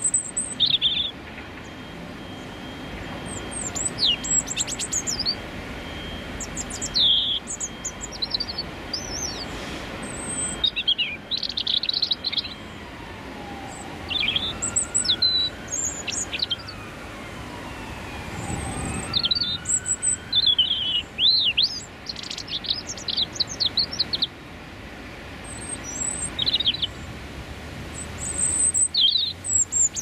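Male European robin singing its territorial song close up: short phrases of high, thin, rapidly changing warbling notes, each a second or two long, separated by pauses of a couple of seconds. A low steady rumble of city traffic runs underneath.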